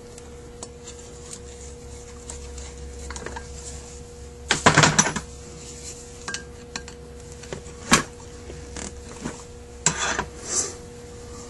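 Small metal carburetor parts clinking and rattling against the metal body of a Zenith 28 carburetor as it is assembled by hand. There is a short burst of clinks about halfway through, then single clinks a few seconds later and near the end, over a steady low hum.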